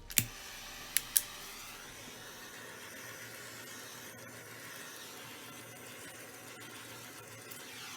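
Gas burner torch hissing steadily as it is passed over freshly poured epoxy resin to pop surface bubbles. It is preceded by three sharp clicks in the first second and a half.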